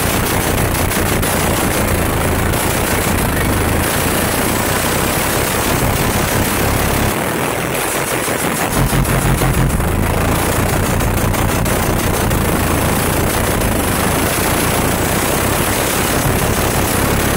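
Truck's car-audio subwoofers playing bass-heavy music at extreme volume inside the cab, overloading the microphone into a distorted, crackling pounding. About seven seconds in, the bass cuts out for a second or so, then comes back.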